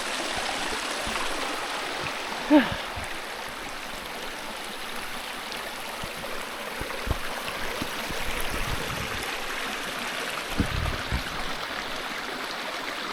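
River water flowing steadily, a constant rushing. A brief pitched vocal sound about two and a half seconds in, and a few low thumps later on.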